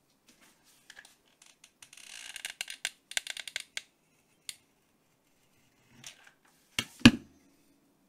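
Jute twine scratching and rasping against the textured chalk-painted surface of a glass demijohn as it is pressed and wrapped on by hand, in a run of scratchy strokes about two to four seconds in. Near the end come two sharp knocks, the second the loudest, with a low thud.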